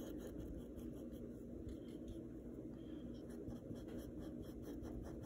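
Faint scratchy rubbing of a small paintbrush stroked repeatedly up and down on a canvas, over a low steady room hum.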